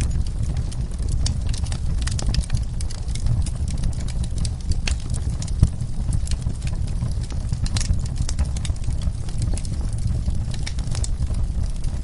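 Wood fire burning in a fireplace: a steady low rumble of flames with irregular sharp crackles and pops, one louder pop about halfway through.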